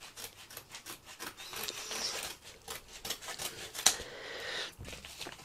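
Scissors snipping along the edge of a padded paper mailing envelope: a run of short cuts with paper rasping between them. There is one sharper click about four seconds in.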